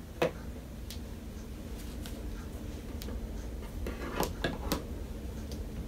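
Small scissors snipping a few times, sharp short clicks bunched together about four seconds in, with a faint steady hum underneath.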